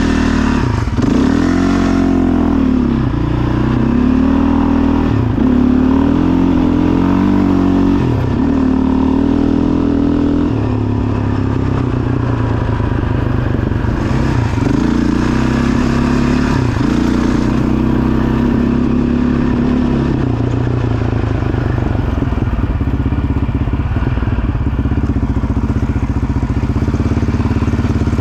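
2008 Yamaha Raptor 700 quad's single-cylinder four-stroke engine running under way on a test ride after fitting a 36-tooth rear sprocket. It revs up and drops back again and again as it accelerates through the gears, then holds a steadier pace for the last several seconds.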